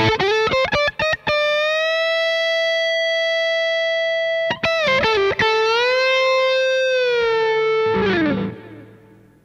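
1970s Fender Stratocaster electric guitar playing a quick run of notes, then a single note held for about three seconds, a few more picked notes, and a second held note that is bent up. Near the end it slides down in pitch and fades out.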